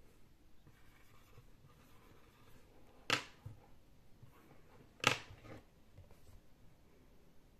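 Faint scratching of a felt-tip marker writing on a small whiteboard, with two short, sharp clicks about two seconds apart, the second the louder.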